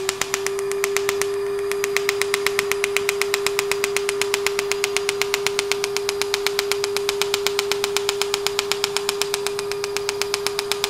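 Er:YAG laser firing in rapid, evenly spaced pops, several a second, as the fractional handpiece ablates facial skin; each small pop comes from the water in the skin evaporating. A steady mid-pitched hum runs with the firing, sliding up in pitch as it starts and down after the pops stop near the end.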